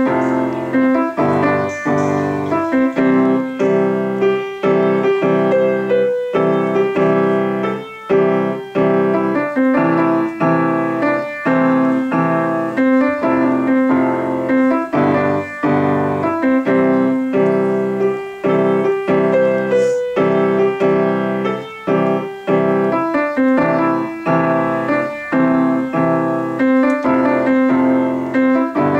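Yamaha grand piano played with both hands: a steady, unbroken run of notes from a written piece, with a short figure that keeps coming back.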